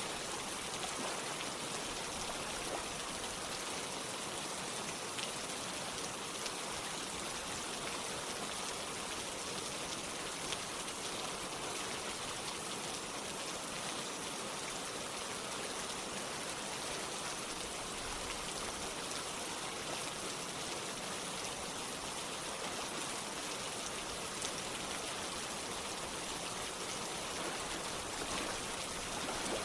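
Steady rain falling together with running water: an even hiss with scattered faint drop ticks.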